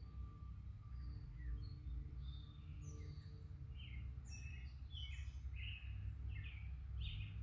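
Small birds chirping and calling, many short high notes, over a steady low rumble.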